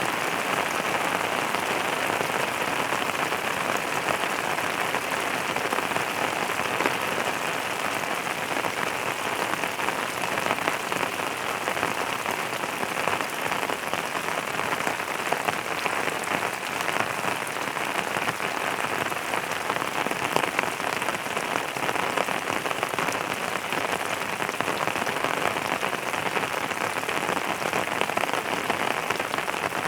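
Steady rain falling on a surface, a dense continuous patter of drops without thunder.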